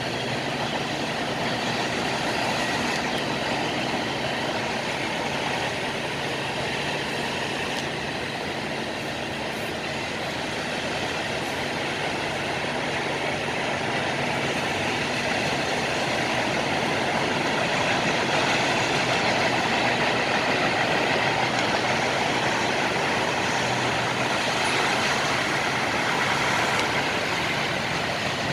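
Steady rolling noise of a freight train's tank cars, boxcars and hoppers passing on the rails, a little louder in the second half.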